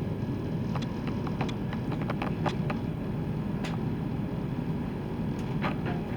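ScotRail Class 170 Turbostar diesel multiple unit running, heard from on board: a steady low rumble with scattered sharp clicks and knocks.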